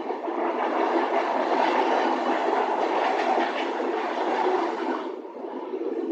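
Portuguese electric commuter train running along the track, heard from inside the carriage: a steady rumble of wheels on rails with faint rail-joint clicks. Around five seconds in the noise eases and turns duller.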